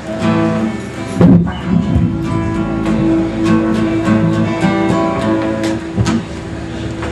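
Acoustic guitars strummed, with one long steady note held above the strumming from about two seconds in until near the end.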